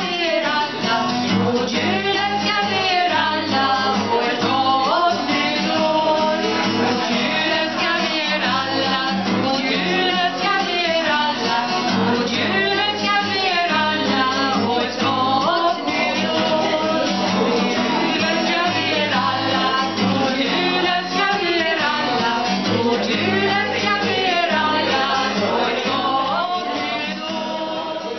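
Two women singing a Swedish Christmas song together while strumming two guitars, one of them an acoustic guitar. The music fades near the end.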